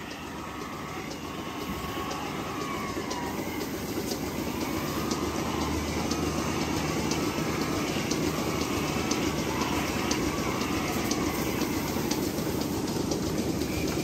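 Milking parlour machinery running: a steady low mechanical noise with many quick clicks, growing louder over the first several seconds and then holding.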